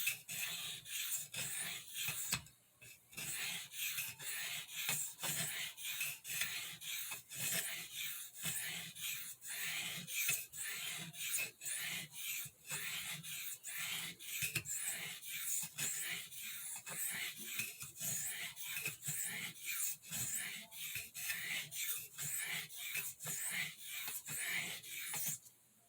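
Steel pocket-knife spey blade stroked back and forth on an Arkansas sharpening stone in quick, light strokes, about two a second, with a short pause a few seconds in; the strokes stop just before the end.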